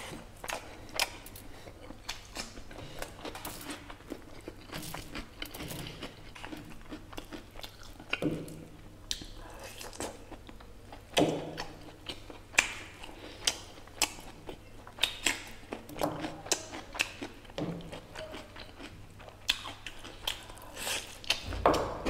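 Close-miked eating of mutton curry and rice: chewing and biting with many irregular, sharp, wet mouth clicks and smacks, and a few heavier thuds.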